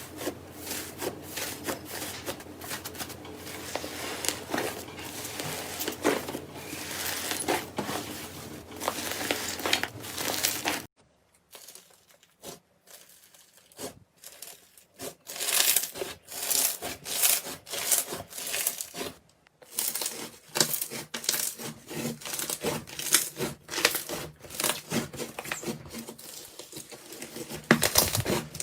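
Slime being squished and worked by hand, making many quick crackling clicks and pops, with a pause of a few seconds partway through.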